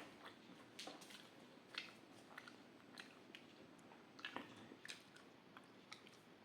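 Faint, close-up mouth sounds of someone eating rice with curries: soft chewing with scattered wet clicks and smacks, a few each second.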